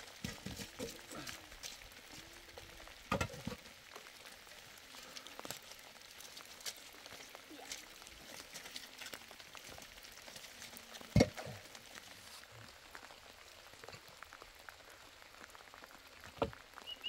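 Light rain pattering and hissing steadily, with a few hard knocks of concrete cinder blocks being set down and stacked; the loudest knock comes about eleven seconds in.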